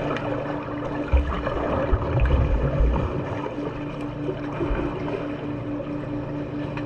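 Swimming-pool water sloshing and splashing, over a steady hum that pulses several times a second, with a few low thumps between about one and three seconds in.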